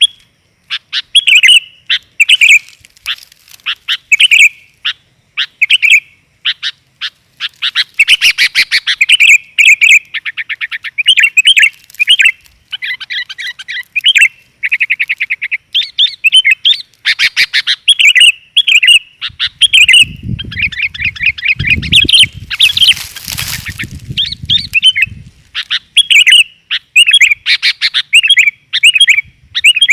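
Sooty-headed bulbul (kutilang) calling continuously in quick repeated chirps and fast trills, the female's voice used as a lure for males. A low rumble and a brief rush of noise cut in about two-thirds of the way through.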